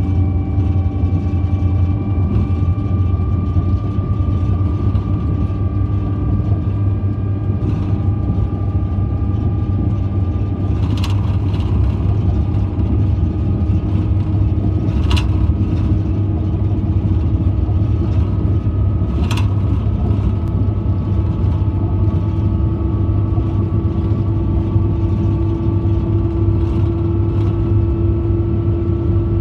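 Cab noise of a French high-speed electric train running at speed: a steady heavy rumble with an electric whine whose pitch creeps slowly upward as it gathers speed. Three sharp clicks are spread through the middle.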